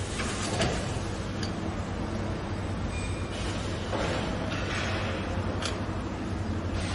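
A few light clicks and a stretch of rubbing as tripod and pole parts are handled and screwed together, over a steady low hum.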